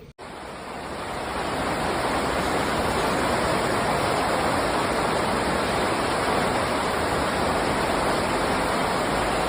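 Loud, steady roar of rushing water in typhoon conditions. It swells over the first two seconds and then holds steady.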